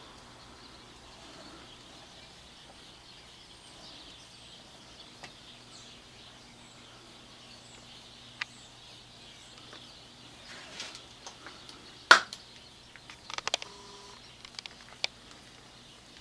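Quiet room with a steady low hum and faint high chirps, then from about two-thirds of the way in a scatter of clicks and knocks, the loudest a single sharp knock.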